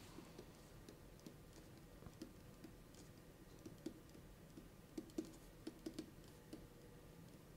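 Faint, irregular typing on a computer keyboard, with a few louder taps about five to six seconds in, over near-silent room tone.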